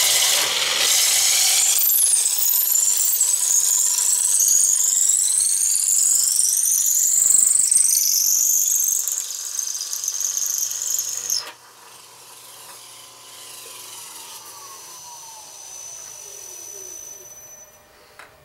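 A square wood blank spinning in the lathe is fed through a Veritas 3/8" dowel maker, its blade shaving the blank round with a loud, high squeal that wavers in pitch. The cutting stops abruptly about eleven seconds in. After that comes a much quieter running sound that falls steadily in pitch.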